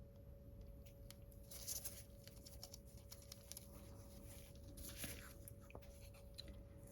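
Faint rustling and small clicks of a nail sticker sheet being handled and a sticker peeled off it, with two brief rustles about one and a half and five seconds in, over a faint steady hum.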